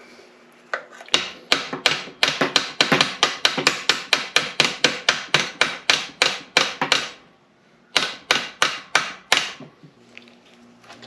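Rapid hammer blows on the metal of an NP205 transfer case's shift lever, about four a second. A long run of some two dozen strikes is followed by a brief pause and then a short run of about six more.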